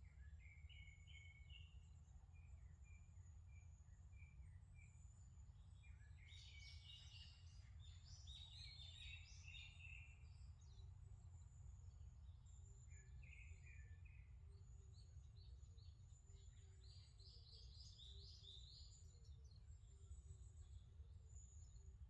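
Faint forest birdsong: several songbirds chirping and calling in short phrases, with a thin, high continuous trill and a steady low rumble underneath.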